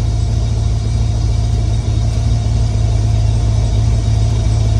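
A 6.0-litre LS V8 idling steadily, a low, even rumble.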